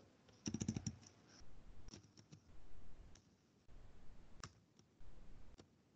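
Faint computer keyboard keystrokes: a quick run of about half a dozen taps about half a second in, then scattered single taps.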